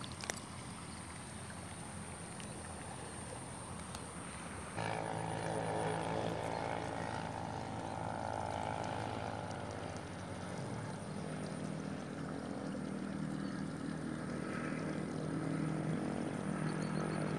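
A motor's steady drone starts abruptly about five seconds in, over faint outdoor background, and settles to a lower pitch about halfway through.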